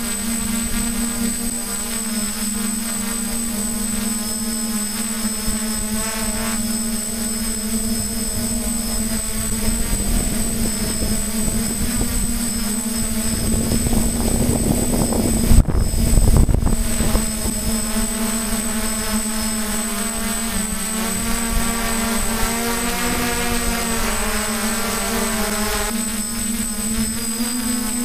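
Hexacopter drone's electric motors and propellers humming steadily, heard from the camera on board, with the pitch wavering as the motor speeds shift. About halfway through, a few seconds of wind noise rumble on the microphone.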